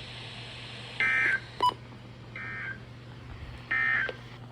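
Three short bursts of warbling Emergency Alert System (SAME) digital data tones, about a second apart with the middle one quieter: the End-of-Message code that closes an alert broadcast. A sharp click comes between the first and second bursts, over a steady low hum.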